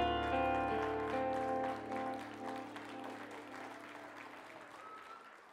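The final strummed chord of an acoustic guitar ringing out and slowly dying away, with audience applause that fades as well.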